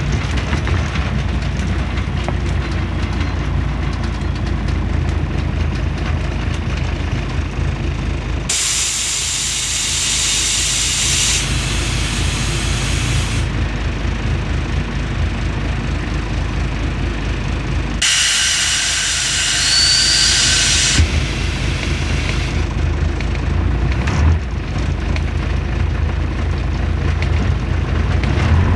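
Scania CN113CLB city bus heard from inside the cabin: its diesel engine runs steadily, and twice a loud hiss of compressed air from the bus's pneumatic system lasts several seconds, first about eight seconds in and again about ten seconds later.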